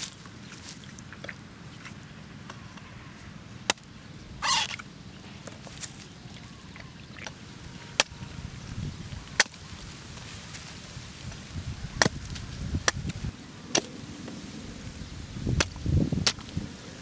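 A machete chopping into green coconut husks: about eight single, sharp chops spaced a second or more apart, coming more often in the second half.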